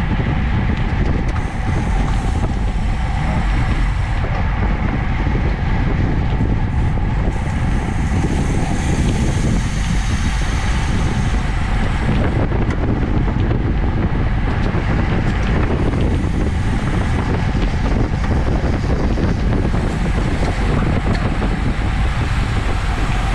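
Steady, loud wind noise buffeting a bike-mounted camera's microphone while riding a road bike at about 30 mph in a racing pack.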